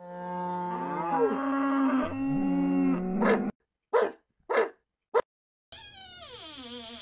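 Pitched, cartoon-style sound effects on a homemade stop-motion film soundtrack: a held, wavering tone with bends for the first few seconds, then three short blips, then a long falling glide near the end.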